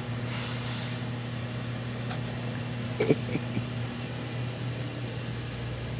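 Steady low electrical hum, with a few faint short sounds about three seconds in.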